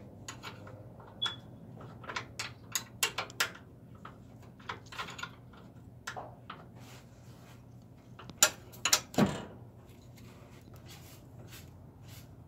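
Irregular metallic clinks and taps of a hand wrench working the top nut of a 1966 Chevrolet El Camino's front shock absorber, with a louder cluster of knocks about eight and a half seconds in.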